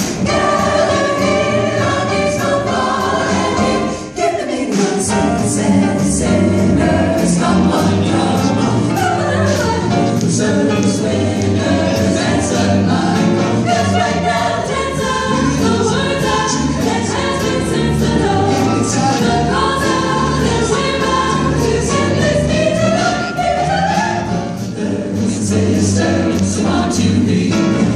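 A vocal jazz ensemble singing in harmony over a rhythm section of upright bass and drums, with a steady cymbal beat about twice a second.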